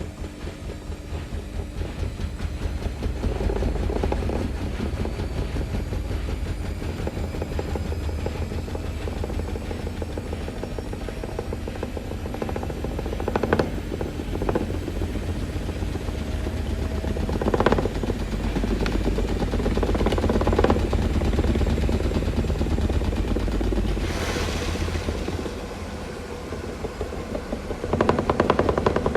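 Samsung WF-R1062 front-loading washing machine running, its drum turning with a fast, steady low throbbing and a faint motor whine that rises slowly in pitch. A few sharp knocks come through the middle, and the sound swells louder near the end.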